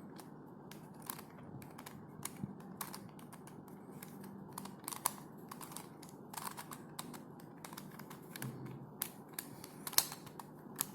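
Plastic pieces of a corner-cut helicopter twisty puzzle clicking as it is turned by hand: irregular sharp clicks, a few a second.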